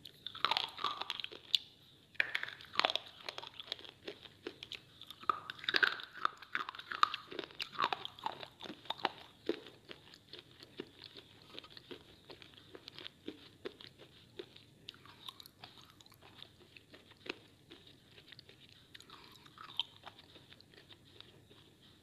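Piece of white slate bitten and crunched between the teeth, then chewed. The crunching is loud and dense for the first half, then thins out to quieter, sparser chewing crackles.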